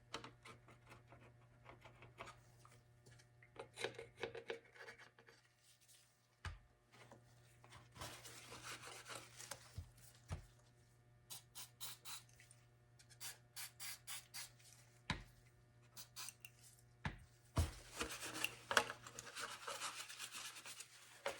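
Plastic armor pieces being handled and pressed together while glue sets: irregular rubbing and scraping with scattered small clicks and taps.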